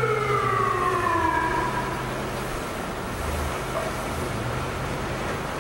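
A siren winding down: one tone falling slowly in pitch that fades out about two seconds in, over a low steady hum.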